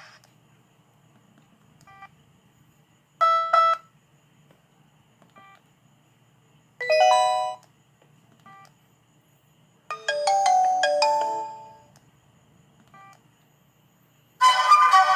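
ZTE Z222 mobile phone ringtone: three short electronic chime phrases about three and a half seconds apart, the third longer with several notes, and faint repeats between them. Near the end a different, busier ringtone starts.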